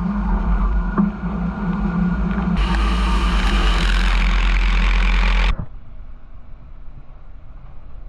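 Machine tool running with a steady hum; a hiss joins about two and a half seconds in, and both cut off suddenly about five and a half seconds in, leaving a quieter background.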